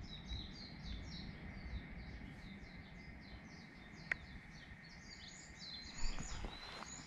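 Birds chirping outdoors: a rapid, continuous run of short, high, falling notes, several a second. Near the end, footsteps on the ground begin.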